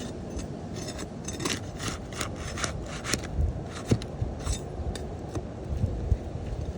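A steel flat bar scraping and prying under roof shingles to lift them, in a run of short scratchy strokes with a single sharp knock a little past the middle.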